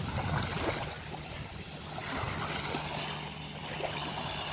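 Small waves lapping at the edge of a sandy beach, over a low steady hum.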